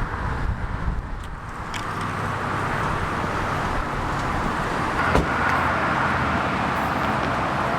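Steady motor-vehicle road noise, an even rushing that grows slightly louder, with one sharp click about five seconds in.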